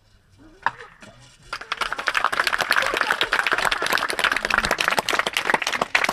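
Audience applauding, starting about a second and a half in and going on as dense, steady clapping.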